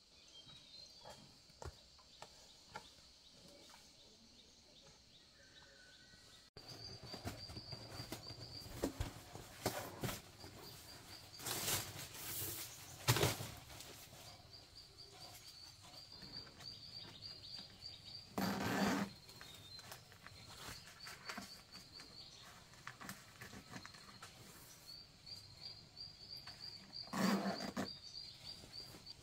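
Outdoor ambience with a high chirping in quick repeated trains, broken by scattered light knocks and a few louder rustling, handling sounds.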